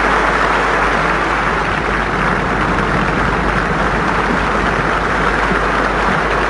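A large hall audience applauding steadily, a dense unbroken clapping ovation from thousands of hands.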